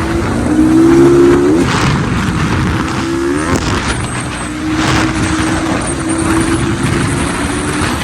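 Motor vehicle engine running amid heavy wind and road noise, its pitch rising briefly about three and a half seconds in.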